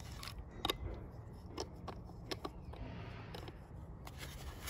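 Plastic sprinkler head being twisted onto the brass threaded fitting of a foam-covered hose neck: a handful of light clicks and scrapes spaced about a second apart, over a low steady rumble.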